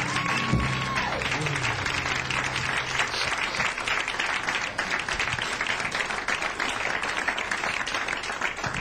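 Audience applauding at the end of a song, while the band's final held notes on piano, upright bass and drums die away over the first few seconds.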